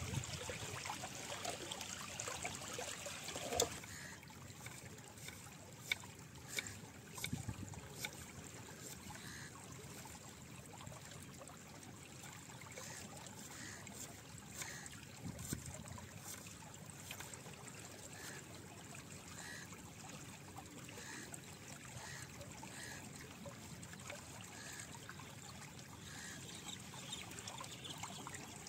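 Seawater trickling and running through the channels between shore rocks at low tide, a faint steady flow. A few sharp taps of a knife on a wooden chopping board come about six to eight seconds in.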